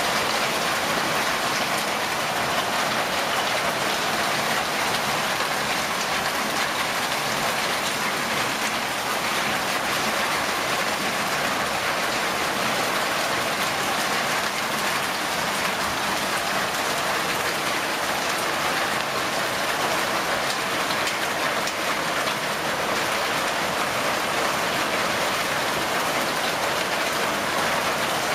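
Hailstorm: hail and heavy rain pelting the ground, a dense, steady hiss of countless small impacts.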